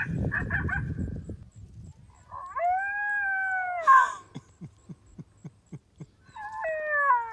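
Animal cries: a few short yelps, then two long wailing calls of about two seconds each, the second falling in pitch, with a row of soft ticks about three a second between them.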